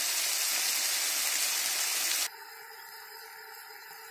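Diced chicken breast sizzling in hot vegetable oil in a frying pan: a steady hiss. About two seconds in it drops abruptly to a much fainter hiss.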